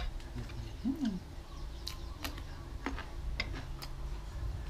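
Eating sounds: a person chewing a mouthful, with scattered small clicks and taps of a metal spoon against a plate, over a low steady rumble.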